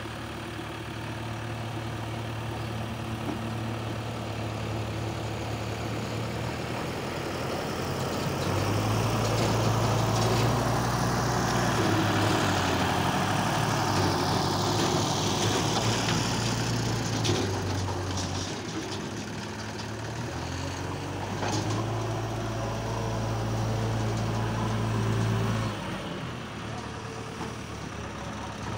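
Diesel engines of a JCB backhoe loader and a Sonalika DI 35 tractor pulling a trailer, running at work with a steady low hum. The engine sound grows louder about a third of the way in and drops back shortly before the end.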